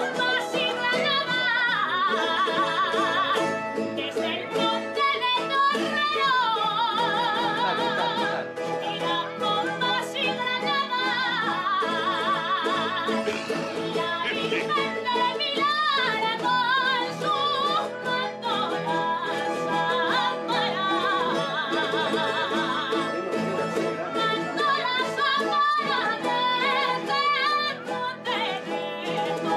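Aragonese jota: a woman sings long held phrases with a wide, wavering vibrato, accompanied by bandurria and guitar. The voice drops out briefly a couple of times between sung lines while the instruments keep playing.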